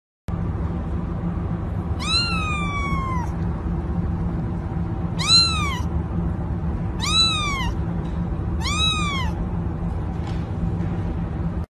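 A kitten mewing four times in short, high, rising-then-falling calls; the first is the longest, about a second. A steady low hum runs underneath.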